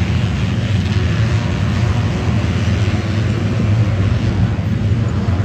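Motocross race bikes running on a dirt track, many engines together in a loud, steady drone.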